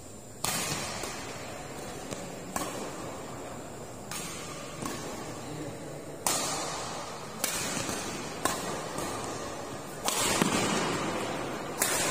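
Badminton rally: racket strings striking the shuttlecock in a string of sharp smacks roughly every one to two seconds, each ringing out with echo in a large indoor hall.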